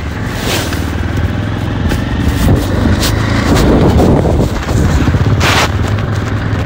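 A motorbike riding along a road, its engine a steady low hum, with three brief whooshes of passing air or traffic.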